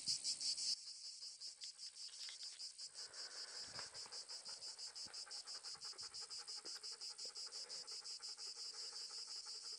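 Insects chirping, a high-pitched steady pulsing of about six pulses a second; the chirping drops in level under a second in and carries on more quietly.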